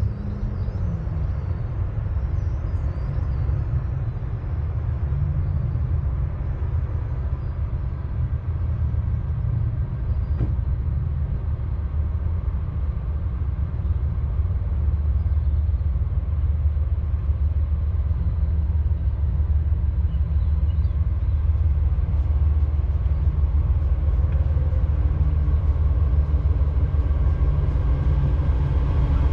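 Low, steady rumble of a freight train heard at rail level, growing slowly louder, with faint humming tones in the rails coming in near the end.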